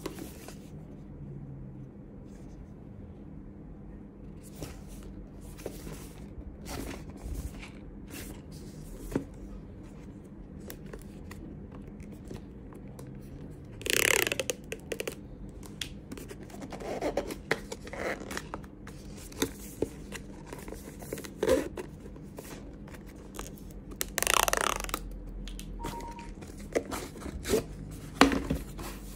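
Cardboard retail box being handled and opened: scattered light taps and rubs of fingers on the card, with two louder tearing sounds about a second long, one about halfway through and another near three-quarters of the way, as a seal or tab on the box is torn.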